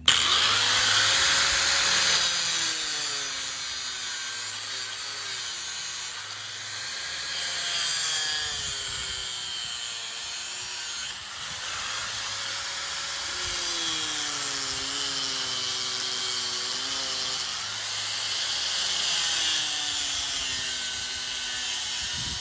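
Harbor Freight corded angle grinder cutting through the steel wires of a hog panel. The motor's whine sags and recovers over and over as the wheel bites into each wire and comes free, over a steady high grinding hiss.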